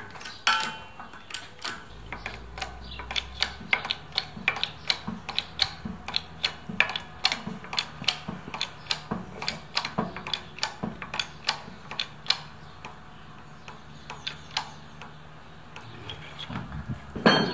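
Hand-pumped hydraulic shop press being worked, its pump and ram clicking sharply about two or three times a second, with a louder knock near the end. The press is pressing parts of a wheel hub with a tapered roller bearing.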